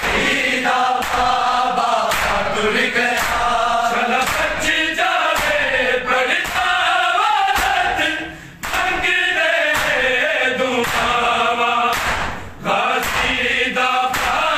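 Men's voices chanting a noha in chorus, with sharp slaps of hands on bare chests (matam) about once a second keeping the beat. The chanting breaks off briefly twice in the second half.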